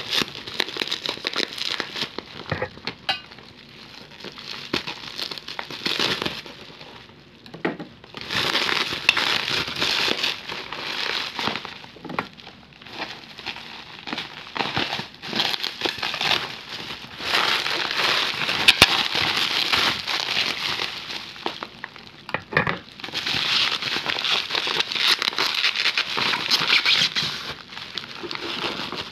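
Plastic bubble wrap crinkling and crackling as hands pull it apart to unwrap a package. It comes in several long bouts with quieter pauses between.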